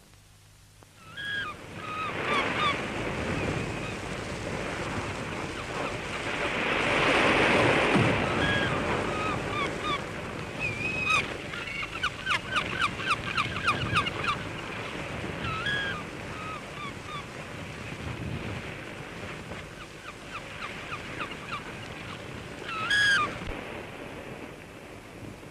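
Surf washing on a beach, with one wave swelling loudest about seven seconds in. Gulls are calling over it: separate drawn-out cries and a quick run of short calls about halfway through.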